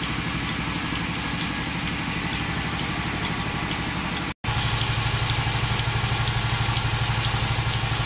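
Milking machine's vacuum pump running steadily with a fast, even rhythm. About four seconds in the sound drops out for an instant, then returns louder, with a stronger low hum.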